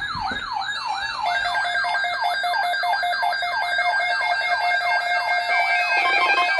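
Electronic alert siren in a fast yelp, its pitch sweeping up and down about two and a half times a second. About a second in, steady high alarm tones join it, and near the end a low pulsing buzz comes in.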